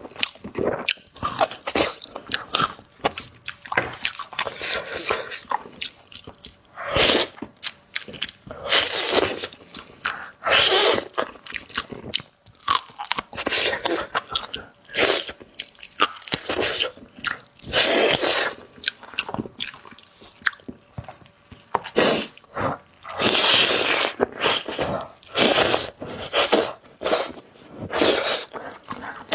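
A person biting and chewing braised pork knuckle close to the microphone, in irregular bursts of eating noise.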